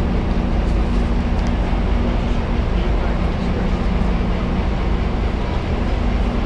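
Steady low drone of a passenger train idling at the platform, its diesel engine running with an even hum, with faint passenger chatter over it.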